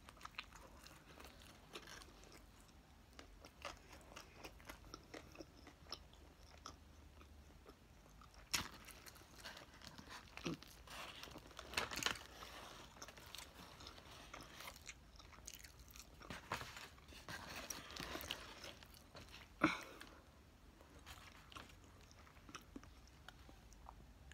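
Close-up chewing and biting of a burger: soft mouth sounds with scattered sharper clicks and crunches, busiest through the middle stretch.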